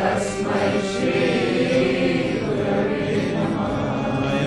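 Music: a choir of voices singing a chant with sustained notes.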